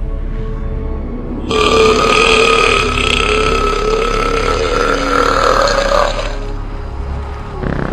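One long, loud burp lasting about five seconds, starting about a second and a half in, its pitch wavering as it goes. It is a comedy burp sound effect dubbed over the film's soundtrack.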